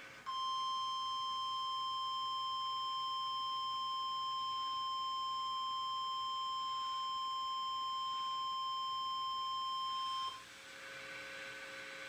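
NOAA Weather Radio warning alarm tone: a single steady 1050 Hz tone held for about ten seconds, then cut off sharply. It is the signal that a warning message follows. After it a faint hum from the radio receiver is left.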